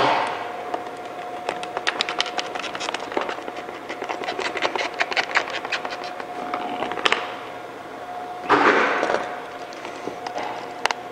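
Chrome vinyl wrap film being worked and trimmed with a blade along a grille recess: quick runs of small clicks and crackles, then a short rushing noise about eight and a half seconds in. A faint steady hum sits underneath.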